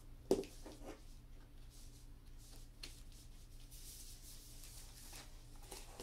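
Foam-padded weighted hula-hoop sections handled and pushed together: a soft knock about a third of a second in, a few light clicks, then faint rustling.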